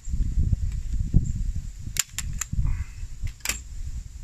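Hand-held metal staple gun driving staples into a wooden seat frame: three quick sharp snaps about two seconds in, then one louder snap about a second later. Under them runs a loud, uneven low rumble.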